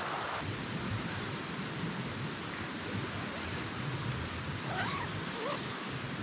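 Steady rushing noise of a river, with a brief high, wavering animal call about five seconds in.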